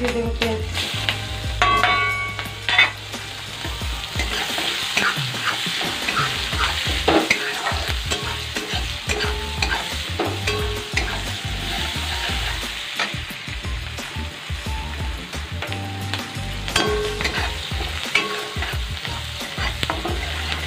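Sliced onions sizzling in hot oil in a metal karahi, stirred with a spatula that scrapes and knocks against the pan in frequent short clicks.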